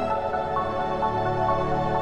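Background music: soft, steady new-age or ambient instrumental with sustained tones.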